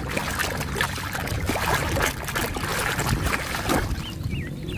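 Water splashing and sloshing in quick irregular bursts as a plastic dinosaur toy is rubbed and swished in the water to wash the mud off.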